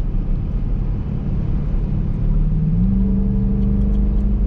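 2021 Dodge Durango R/T's 5.7-litre HEMI V8 running under way through its stock mufflers, a steady low rumble whose note rises about two and a half seconds in and then holds.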